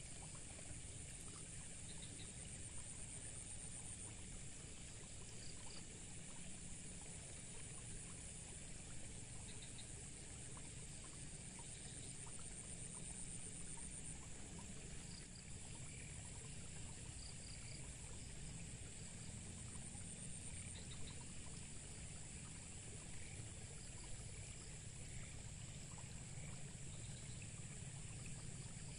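Faint outdoor ambience beside a ditch: water trickling steadily, with a continuous high hiss and a few short, high chirps scattered through it.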